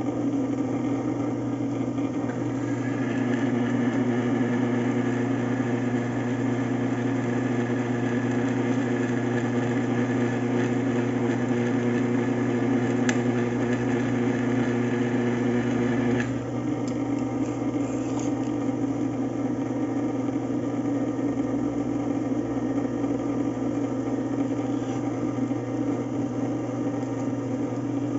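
Bench drill press running steadily, a thin pilot bit boring into the steel rivet head of a car's control-arm ball joint. The sound changes abruptly about sixteen seconds in.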